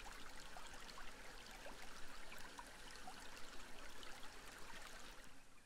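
Faint running water of a muddy river, trickling, with small light splashes.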